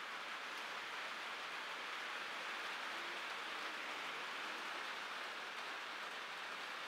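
Heavy rain falling, an even steady hiss.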